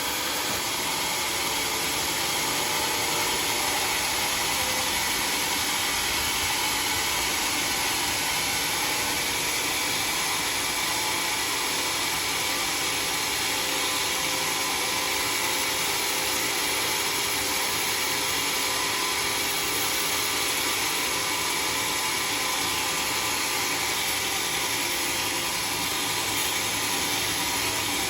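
Sawmill saw machinery running steadily, a constant whine and hiss without a break.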